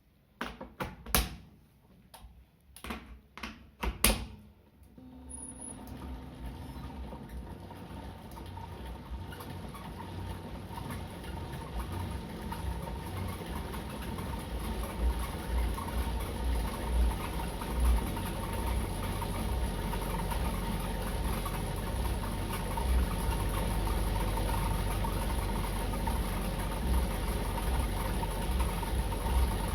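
A few sharp clicks, then an Elite Suito-T direct-drive bike trainer running as it is pedalled, growing gradually louder as it spins up. The trainer is the one with the squeak problem.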